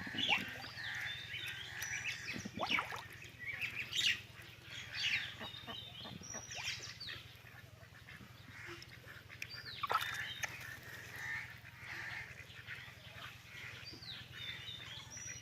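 Birds calling and chirping, many short gliding calls that come thick and fast, some louder than others.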